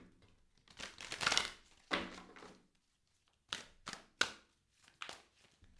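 Tarot deck being shuffled by hand: a rustling rush of cards about a second in, then a handful of short, sharp card snaps and taps at uneven intervals.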